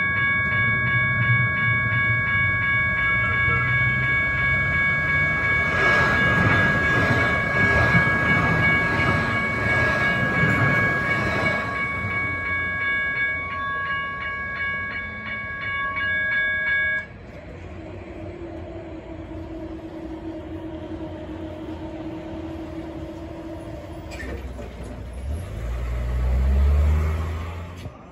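Level-crossing bells ringing in a steady rapid pulse while a C-Train light-rail train passes noisily for several seconds; the bells cut off abruptly a little over halfway through. After that it is quieter, with a low hum and a low rumble that swells and fades near the end.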